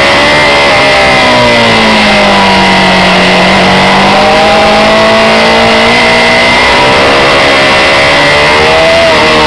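Honda CB600F Hornet's inline-four engine running under way, its pitch sagging about two to four seconds in and climbing again near the end, with a steady high whine alongside and a loud rush of wind and road noise.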